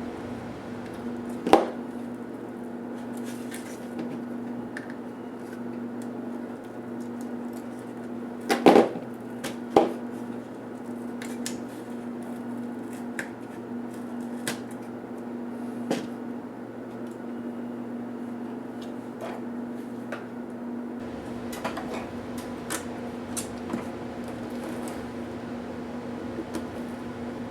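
Scattered clicks and knocks of plastic laptop parts, screws and tools being handled during disassembly of a Toshiba P755 laptop, the loudest a pair of knocks about 9 and 10 seconds in, over a steady electrical hum.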